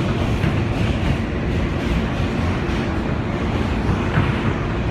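Steady running noise of an R160 New York City subway car at speed, heard from inside the car: a continuous rumble of wheels on rails with no clear rhythm or sudden events.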